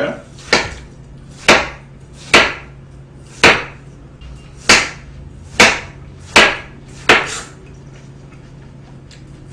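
Kitchen knife chopping watermelon into chunks, the blade knocking down onto a plastic cutting board: about eight sharp knocks, roughly one a second, the last about seven seconds in.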